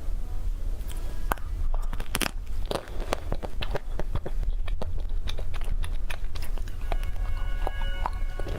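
Close-miked eating of cake: a dense run of crisp bites and crunches, with chewing.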